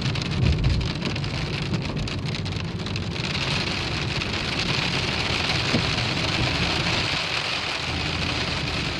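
Pea-size hail and rain pelting the car's roof and windshield, heard from inside the cabin over the low rumble of the moving car. A patter of separate small hits thickens about three seconds in into a steady, heavier hiss.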